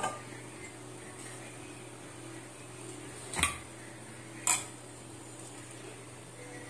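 Steady hiss of a gas stove burner over a low hum, with two short light knocks about three and a half and four and a half seconds in.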